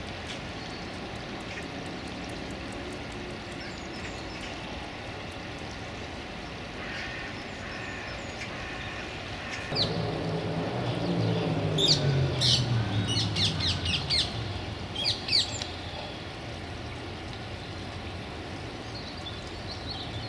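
Wild birds calling over steady background noise. Between about twelve and fifteen seconds in comes a run of short, sharp, high calls, the loudest sounds here. Under them a low rumble rises about ten seconds in and fades a few seconds later.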